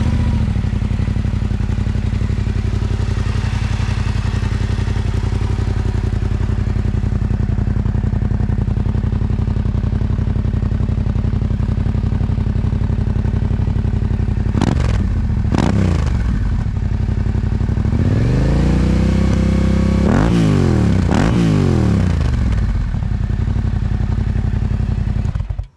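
Yamaha Ténéré 700's parallel-twin engine, warm, idling through a Yoshimura RS-12 slip-on muffler run without its spark arrestor or baffle. Past halfway it is blipped twice, then revved up and held briefly, blipped twice more, and drops back to idle before being switched off at the very end.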